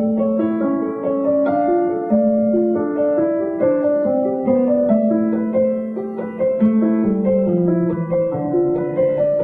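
Background piano music: a steady flow of notes over a slowly moving bass line.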